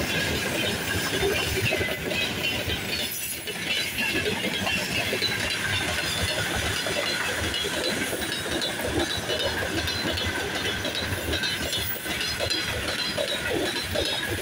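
A freight train's open gondola wagons rolling past at steady speed: a continuous rumble and hiss of wheels on the rails.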